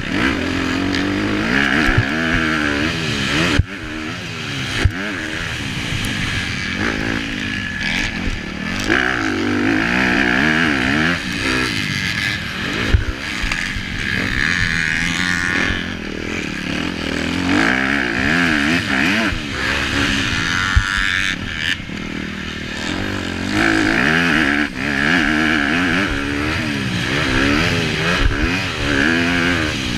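Honda CRF250R four-stroke single-cylinder motocross engine, heard from a camera mounted on the bike, revving up and falling back over and over as the rider accelerates, shifts and backs off through corners and jumps. A few sharp knocks are heard along the way.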